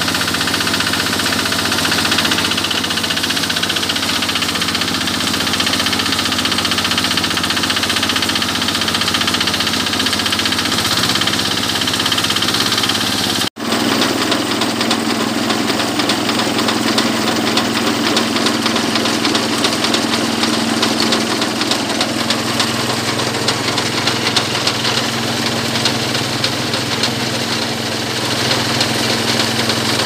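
Kubota 11.5 hp diesel engine of a walk-behind mini rice combine harvester running steadily as the machine cuts and threshes rice. The sound cuts out for an instant about halfway through, and the engine note then settles at a slightly different pitch.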